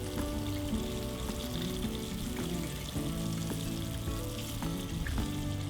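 Breaded sheepshead pieces frying in hot olive oil, a steady sizzle.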